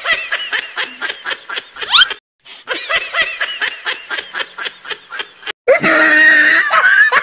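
Rapid high-pitched snickering laughter, a string of short 'hee-hee' pulses, about four or five a second. It is cut off sharply twice, with a quick rising glide about two seconds in. In the last second and a half a louder held sound with a steady pitch takes over.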